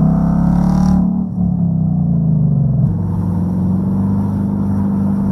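Ford Mustang Bullitt's V8 engine under acceleration, its note rising in pitch, dropping back about a second in, then running on at a steady note.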